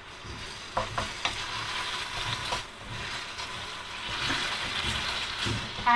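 A wooden spatula stirring and scraping curd and mashed potato around a nonstick frying pan, with steady sizzling from the still-hot pan after the gas has been turned off. Several sharp clicks as the spatula knocks the pan in the first few seconds.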